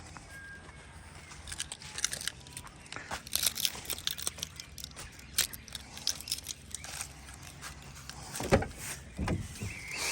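Irregular footsteps with scattered clicks, rustling and handling knocks, a few sharper knocks near the end.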